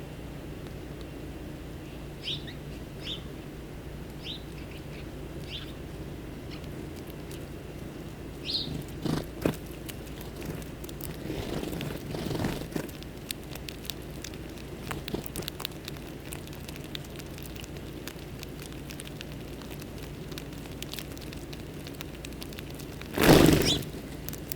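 Small songbirds at a feeding spot give short, separate chirps, several of them in the first few seconds, with scattered rustling and pecking sounds over a steady low hum. Near the end comes one loud, brief rustling flurry.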